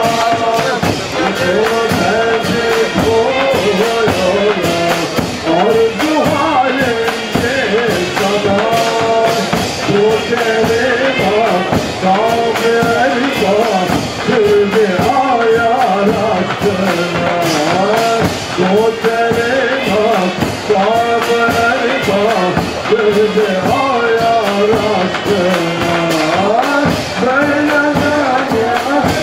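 Ottoman mehter band playing a march live: shrill zurnas carry a wavering melody over steady beats of davul drums, kettledrums and cymbals.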